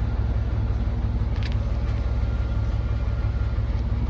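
Steady low rumble with one sharp click about a second and a half in, as the handle of a Chevy Tahoe door that is stuck shut is pulled.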